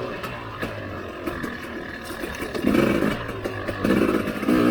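Husqvarna TE300i two-stroke enduro motorcycle engine running at low revs on a trail ride, with a few short rises in revs in the second half.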